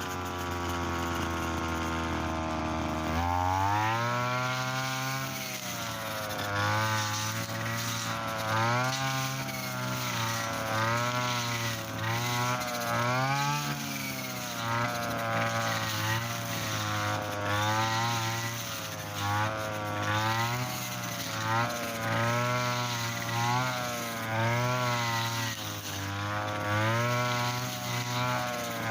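Mitsuyama brush cutter's small petrol engine running hard with a 2.4 mm nylon trimmer line. Its pitch holds steady for about three seconds, then climbs and keeps rising and falling about once a second as the line cuts into thick, stiff field grass.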